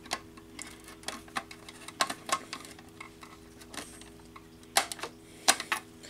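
Screwdriver tightening a terminal screw on a fire alarm pull station: irregular metallic clicks and scrapes of the tip turning in the screw head, a few sharper ones about two seconds in and near the end, over a faint steady hum.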